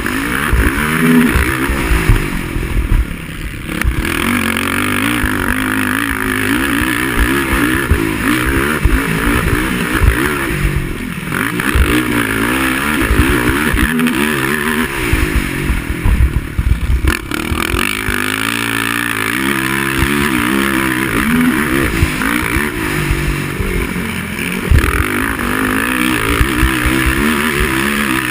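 Racing quad (ATV) engine revving up and down continuously as it is ridden hard around a motocross-style track, its pitch rising and falling with each throttle change.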